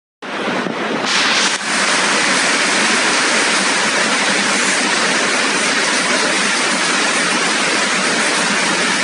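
Rain falling, a steady dense hiss that starts suddenly just after the beginning, with a brief louder surge about a second in.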